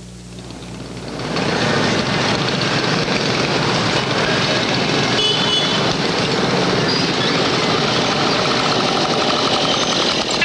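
Road traffic noise: a loud, steady wash of vehicles and engines on a street, swelling up about a second in.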